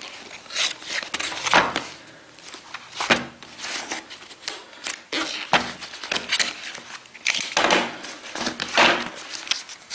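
Snap-off utility knife blade slicing along the edge of a corrugated cardboard mailer, in irregular short scrapes and rustles, then the cardboard flaps being folded open near the end.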